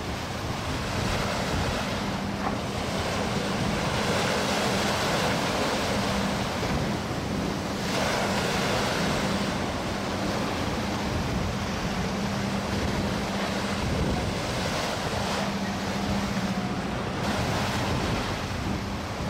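Sea waves washing on the shore, a steady rushing with wind buffeting the microphone. A low steady hum comes and goes underneath.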